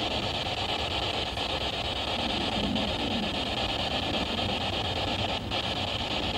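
SB7 spirit box sweeping through radio stations: a steady hiss of static with faint, brief fragments breaking through.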